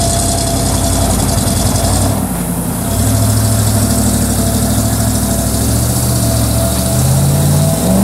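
An old Chevy's engine idling, with a brief dip about two seconds in and its pitch rising slightly near the end as it picks up a little.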